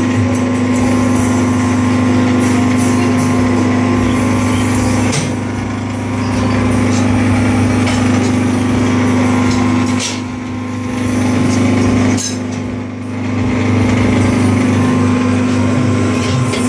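Hydraulic power pack of a four-cavity gallon-cap moulding press running with a steady electric hum. The hum dips and shifts twice about two-thirds of the way through as the press load changes, with light clicks and clatter of the mould and plastic caps being handled.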